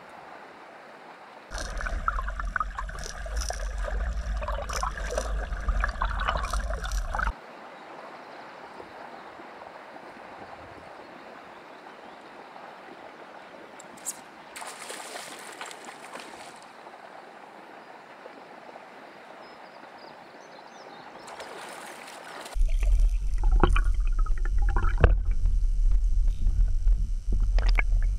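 Slow-flowing river water, a steady even wash. Twice it gives way to a louder underwater sound: a heavy low rumble with many ticks, the first stretch lasting about six seconds, the second starting about 22 seconds in.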